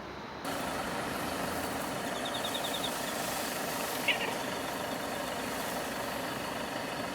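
Steady background noise like distant traffic, starting abruptly about half a second in, with a single short high chirp about four seconds in.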